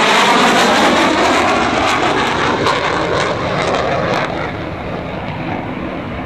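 F/A-18 Hornet jet fighter passing by. Its jet noise is loudest at the start and fades as it banks away, with sharp crackles through the middle.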